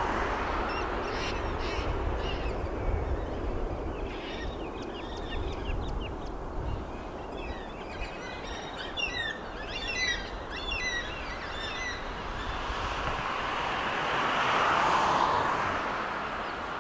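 Small birds chirping in a quick run of short calls, over the steady distant roar of a Boeing 737 MAX's jet engines at takeoff power. The roar swells again near the end as the jet lifts off.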